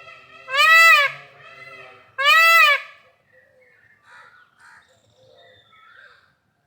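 Peacock calling twice: two loud calls, each rising and then falling in pitch, about a second and a half apart. Fainter calls sound between them, and faint bird chirps follow.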